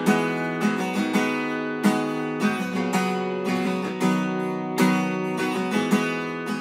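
Intro music on solo acoustic guitar, chords strummed in a steady rhythm about every half second or so.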